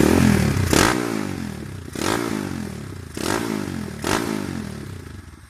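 Freshly bored-up 200cc Kawasaki KLX single-cylinder four-stroke engine, breathing through an aftermarket Purbalingga exhaust, revved in sharp throttle blips: about five in quick succession, the revs falling back after each. Near the end the revs drop back toward idle.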